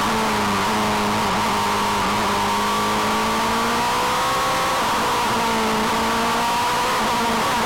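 Single-seater race car's engine running hard under way, heard onboard from the cockpit; its pitch holds high and dips briefly and recovers several times, with wind and road noise underneath.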